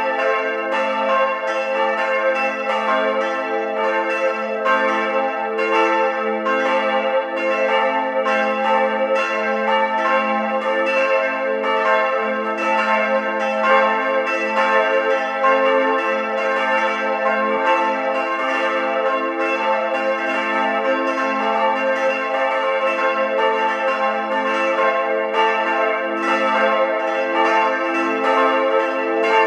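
Church bells of St. Johann Baptist ringing together in a full peal, many notes sounding at once, with strokes overlapping in a steady, unbroken stream.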